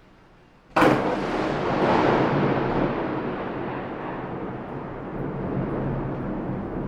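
Thunderclap: a sudden sharp crack under a second in, followed by a long rolling rumble that slowly fades.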